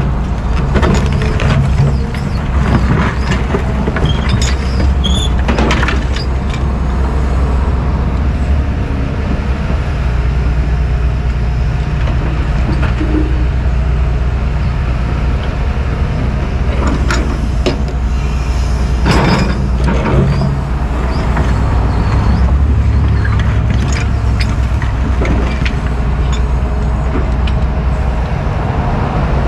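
Diesel engines of John Deere track excavators running steadily, with intermittent clanks and scrapes as the bucket digs into broken concrete foundation rubble, loudest twice near the start and twice past the middle.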